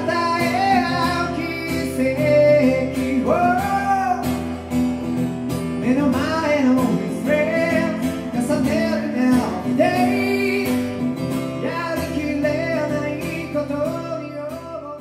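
A man singing a slow, gliding melody over acoustic guitar in a live performance, the mix fading down toward the end.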